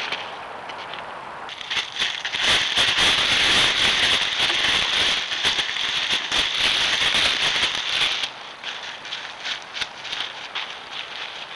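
Dry leaves and brush rustling and crackling close to the microphone as a coyote moves about right at the trail camera. Loud with many sharp crackles for about six seconds, then thinning to scattered crackles as it moves off.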